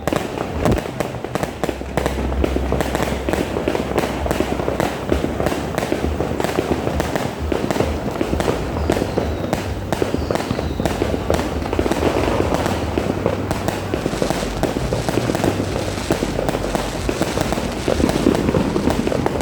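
Dense New Year fireworks barrage: many bangs and crackles overlap in a continuous volley with no let-up.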